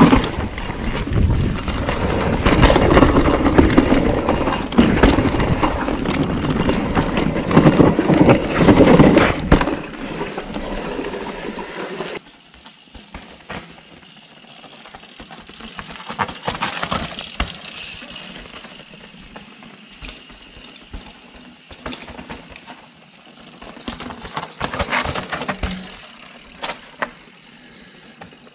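Mountain bike ridden fast down a dirt downhill trail, heard from a camera on the bike or rider: tyres rumbling over dirt and roots, with the bike clattering and rattling. About twelve seconds in, this cuts off abruptly to much quieter trailside sound, in which riders' tyres are heard going by on rock and dirt twice.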